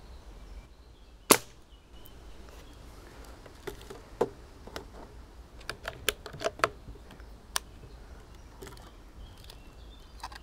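A single sharp shot from a Hämmerli 850 AirMagnum CO2-powered .177 bolt-action air rifle about a second in, the loudest sound here. A run of lighter clicks follows a few seconds later.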